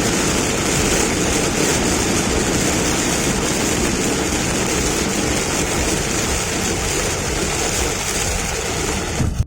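Steady wash of rain and tyre noise from driving on a wet highway, over a low rumble of road and engine.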